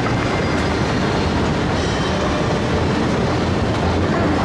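Inclined moving walkway (travelator) running underfoot, a steady rumble from its metal pallets and drive.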